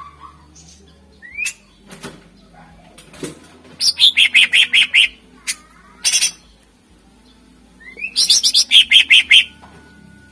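Greater green leafbird (cucak ijo) singing: two loud phrases a few seconds apart, each an upward-sliding note followed by a rapid run of sharp repeated notes, with a short harsh call between them.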